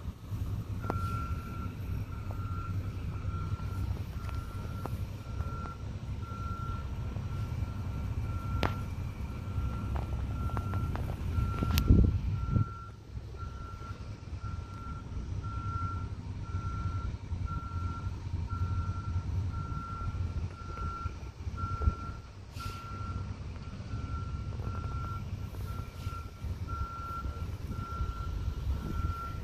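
Yardmax YB6770 two-stage snow blower's 208cc LCT engine running steadily, with one brief louder surge about twelve seconds in. A high, even beep repeats slightly more than once a second from about a second in.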